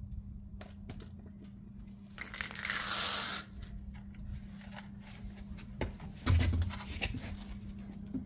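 Handling noises as a pickup's wheel, its lug nuts already off, is worked loose and pulled off the hub: light knocks, a scraping rustle a couple of seconds in, and a heavy thump about six seconds in. A steady low hum runs underneath.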